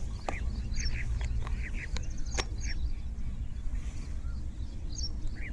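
Small birds chirping: short, high calls repeated many times, over a steady low rumble with a few sharp clicks.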